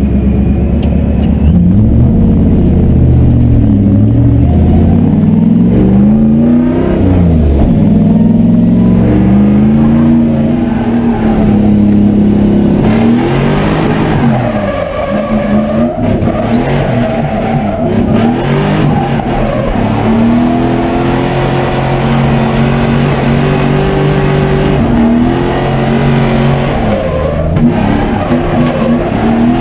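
Supercharged Toyota 1UZ-FE V8 engine swapped into a Datsun 200SX, heard from inside the cabin. It runs steadily for a moment, then revs up and down again and again as the car is driven hard in drifts.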